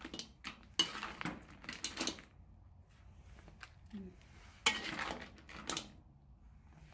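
Kitchen utensils clinking and clattering against dishes and pans, in two spells: one at the start and a shorter one after a quiet gap.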